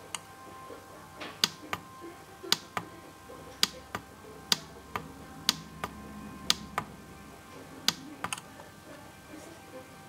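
Plastic push buttons on a PWM solar charge controller being pressed repeatedly, giving sharp clicks about once a second, mostly in close pairs, which stop about eight and a half seconds in.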